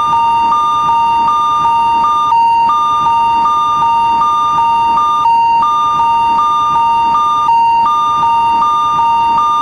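Electronic railroad crossing (fumikiri) warning alarm sounding continuously: two high beeping tones alternating in an even, repeating rhythm, with the upper tone dropping out briefly every couple of seconds.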